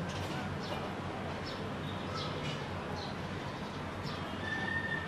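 Small birds chirping in the background: short high chirps at irregular half-second gaps over a steady low hum, with one held high whistle near the end.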